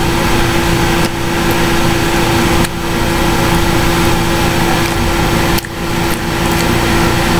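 Loud, steady hiss and hum picked up by a computer's recording microphone, with a constant low tone underneath. It briefly dips three times. The uploader calls it a ton of feedback.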